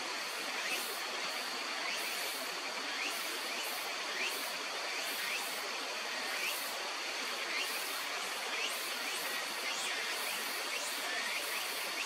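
Steady rush of flowing water, with a faint steady high whine and short rising chirps repeating about once a second.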